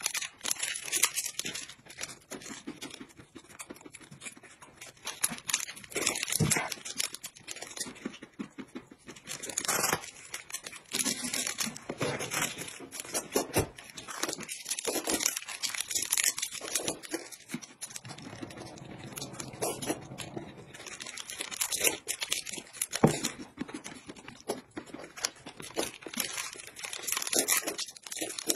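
Crinkling and tearing of small plastic snack wrappers being ripped open by hand, in a run of irregular crackles, mixed with noodles being slurped.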